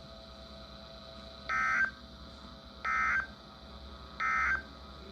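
Emergency Alert System (SAME) digital data bursts from a NOAA Weather Radio broadcast: three short, identical buzzy tone bursts about 1.3 s apart. This is the end-of-message code sent three times to close a severe thunderstorm warning.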